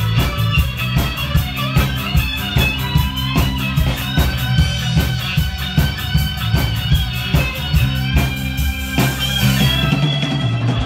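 Live rock band playing at full volume: a drum kit keeping a fast, steady beat under amplified guitar. The low end thins out about nine seconds in.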